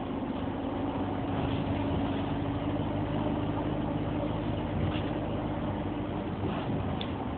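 Optare Solo midibus's diesel engine running steadily, heard from inside the saloon as a low drone with road rumble. There is a small click near the end.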